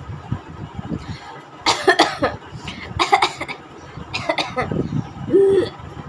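A woman coughing on purpose: several harsh, forced coughs in short groups, about a second apart.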